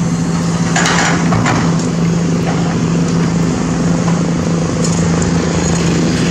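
Sumitomo SH210 excavator's diesel engine running steadily under working load as it digs, with a couple of brief harsh noises about a second in.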